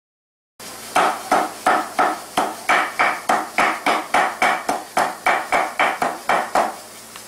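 Large kitchen knife chopping raw meat on a wooden block, mincing it by hand. The chops are even and ringing, about three a second, starting about a second in and stopping shortly before the end.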